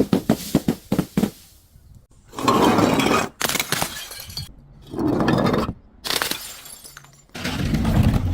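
Glass breaking: a quick run of sharp cracks and clinks in the first second or so, then several longer bursts of glass crunching and shattering, each lasting about a second.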